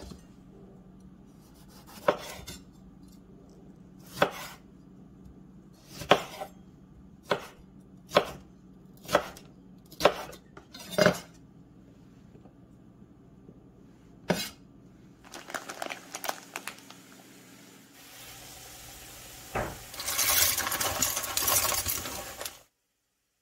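Chef's knife chopping tomatoes on a wooden cutting board: separate sharp knocks about one a second, then a softer scraping as the pieces are pushed off the board. Near the end, dry fusilli pasta pours from a bag into a pot of water with a loud rattling rush that cuts off suddenly.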